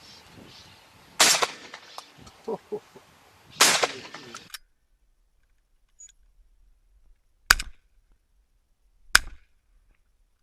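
Four gunshots: two loud reports about a second and three and a half seconds in, then two sharper, shorter cracks near the end.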